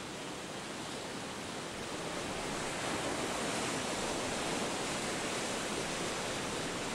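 Steady rushing sound of the open sea: an even hiss with no distinct waves or tones, growing slightly louder a few seconds in.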